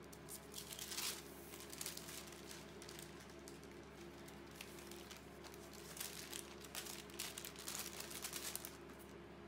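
Sheets of paper rustling and crinkling as they are handled and shifted on a tabletop, in short irregular bursts, busiest about a second in and again in the last few seconds.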